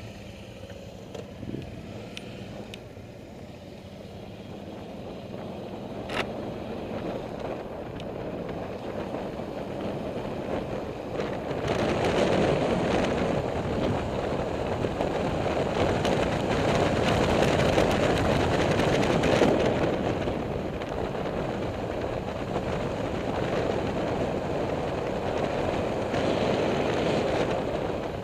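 A motorcycle being ridden, with its engine and wind rushing over the microphone. The wind rush grows much louder from about ten to twelve seconds in as the bike picks up speed.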